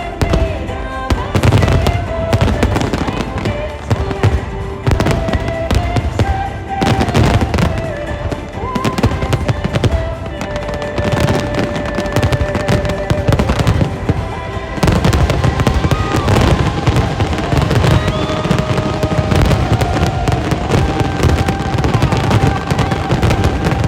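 Fireworks going off in a dense, continuous barrage of bangs and crackling shells, with music playing underneath.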